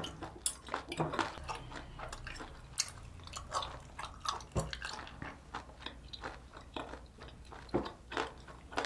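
Close-up chewing of boiled octopus: a run of short, irregular clicks and wet mouth noises, with one sharper knock about halfway through.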